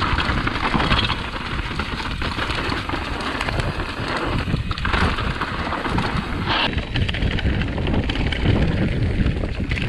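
A mountain bike riding a dirt and rock trail, heard as steady wind buffeting the microphone over tyres rolling across the ground. The bike rattles throughout with many small clicks and knocks.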